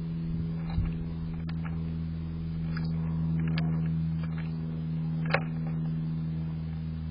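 Steady low electrical hum from the bird feeder camera's own microphone and electronics, with a few short sharp clicks, the loudest about five seconds in.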